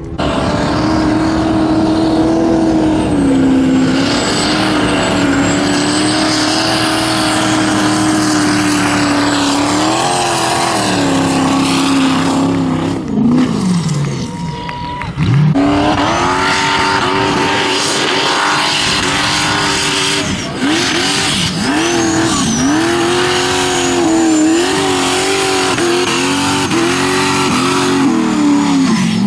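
Formula Offroad buggy engine at high revs, held on the throttle for about ten seconds, then dropping away. After that the engine revs up and down again and again in quick bursts as it fights up the sandy slope.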